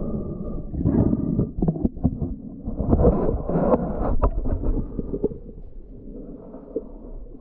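Muffled underwater rumbling with irregular knocks and thumps, picked up by a submerged camera as it moves through shallow seawater; loudest in the first half, easing off after about five seconds.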